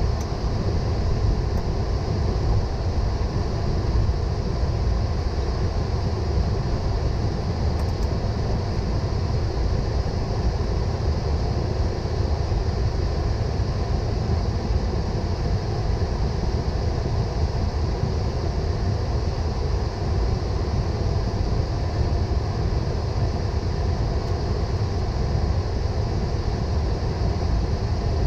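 Steady flight-deck noise inside a Boeing 777: a constant low rumble with a lighter hiss above it.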